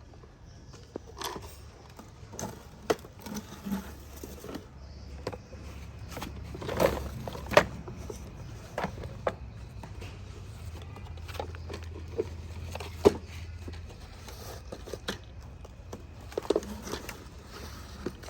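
Toy construction vehicles working: scattered plastic clicks, knocks and scrapes, two loud knocks about halfway through and another a few seconds later, over a faint low hum.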